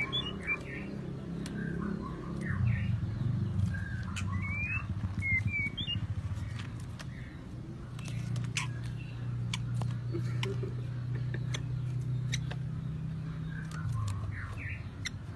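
White-rumped shamas giving short chirping calls, with a few sharp rising notes near the start and again about five seconds in, over a low steady hum.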